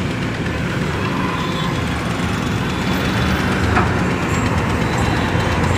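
Kobelco SK210 hydraulic excavator's diesel engine running steadily, with a short click about four seconds in.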